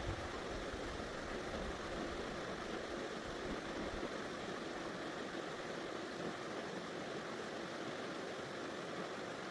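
Steady rushing of a river, an even noise without pitch or rhythm.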